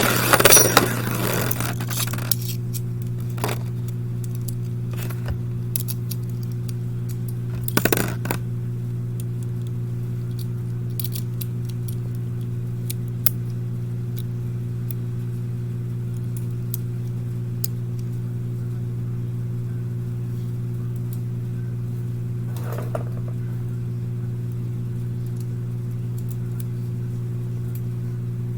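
Spinning Beyblade tops clattering and scraping in a plastic stadium for the first couple of seconds. Then comes a steady low electrical hum with scattered light clicks and a short scrape about eight seconds in.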